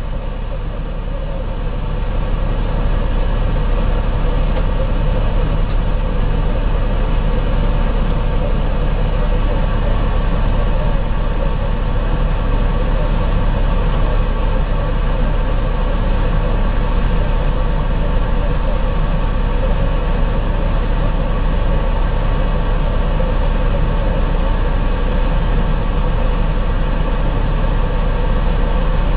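Stryker armoured vehicle's diesel engine running at a steady pace, heard from inside the vehicle as a constant heavy drone. It gets a little louder about two seconds in. No missile launch or explosion is heard.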